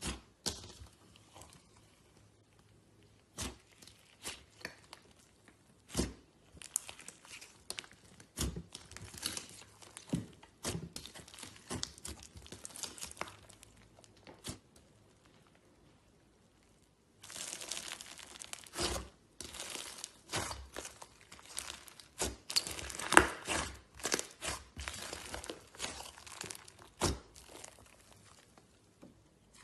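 Slime being squished and poked by hand, giving sticky crackles and pops. These are scattered at first and become a dense run of crackling from about halfway on.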